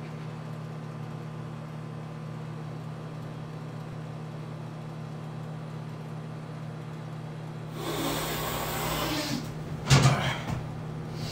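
Steady low hum, then about eight seconds in a person snorting a line of powder up the nose in one long rush lasting over a second. About ten seconds in comes a sharp, loud sniff, the loudest sound, followed by a few shorter sniffs.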